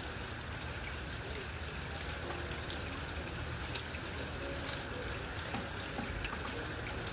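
Steady rain falling on roofs and trees: an even hiss with scattered small drip taps.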